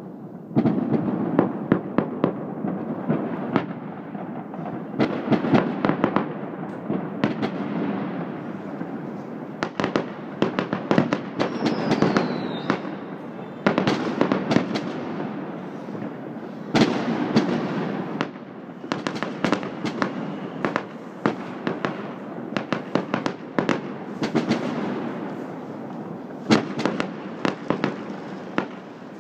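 Fireworks going off over a city: a continuous rumble packed with dense, irregular bangs and crackles from many aerial bursts, with a brief falling whistle about twelve seconds in.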